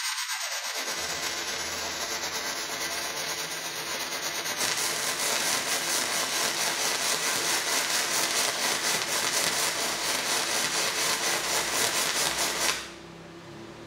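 MIG welding arc from a Daesung MIG-120 SE welder laying a bead on steel plate: a steady crackle and sizzle, louder about four and a half seconds in, that cuts off suddenly near the end when the arc stops. The arc runs stably with no trouble.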